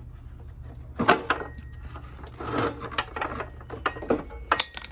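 Hard parts being handled and moved about: an irregular run of clicks, knocks and scraping rubs.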